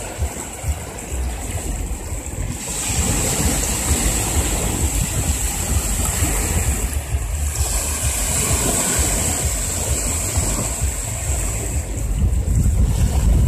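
Small waves washing in and draining back on a sandy shore, with wind buffeting the microphone in a steady low rumble.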